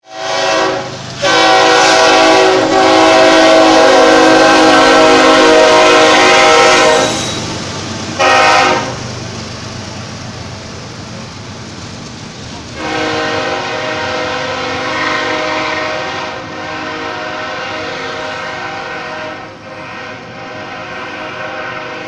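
Diesel freight locomotive's air horn sounding a series of blasts: a short one, a long one of about six seconds, another short one, then a longer, quieter one that continues as the train moves on. Freight cars rumble past under it.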